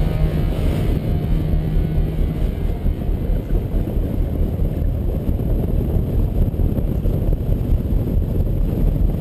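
Steady rushing wind noise on a camera microphone, loud and rumbling, from airflow over a hang glider in flight.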